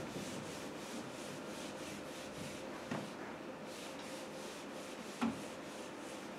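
Whiteboard eraser wiping across a whiteboard in quick repeated strokes, with two light knocks partway through.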